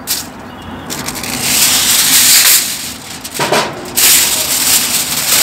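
Aluminium foil crinkling and rustling as it is pressed and smoothed by hand over a gas grill's grate, in two spells with a short break about three seconds in.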